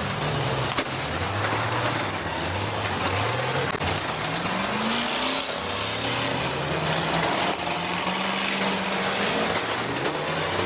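Several school bus engines revving up and down at once, overlapping, during a demolition derby, with one sharp bang about a second in.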